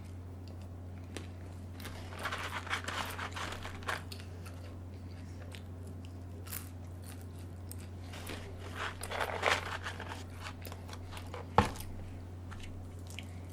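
Close-miked eating of Chick-fil-A waffle fries: chewing and crunching in two spells, with crinkling like a paper fry carton being handled. A single sharp tap near the end, over a steady low hum.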